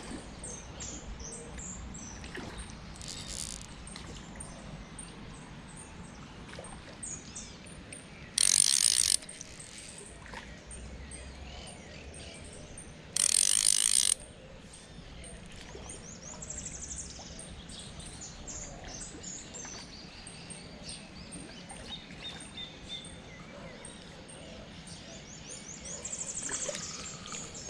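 Two short loud ratcheting buzzes, about eight and thirteen seconds in, typical of a fishing reel's drag or clicker giving line. Birds chirp throughout.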